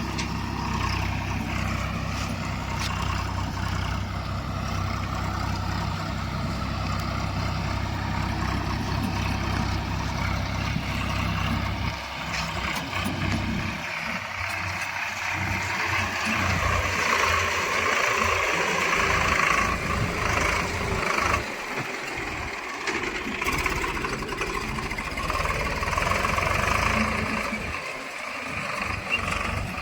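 Heavy diesel engine of earthmoving and farm machinery running, a steady drone at first, then the note rises and varies under load about halfway through, with a couple of knocks.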